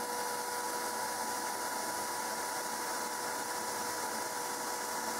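Shop vacuum running steadily, pulling air through the hose of a two-bucket cyclone dust separator: an even rushing noise with a steady whine.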